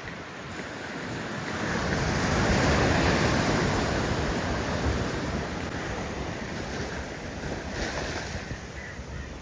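Sea waves surging up the beach: a rush of surf that swells to its loudest about three seconds in and then slowly drains away, with wind buffeting the microphone.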